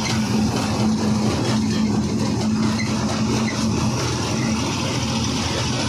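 Ashok Leyland 14-tyre truck's diesel engine running at a steady cruise, heard inside the cab as an even drone over a constant hiss of road and wind noise.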